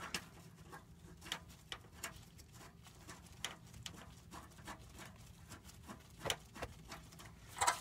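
Faint, scattered clicks and taps of hands working a fuel line fitting onto a new electric fuel lift pump, with a couple of sharper clicks near the end.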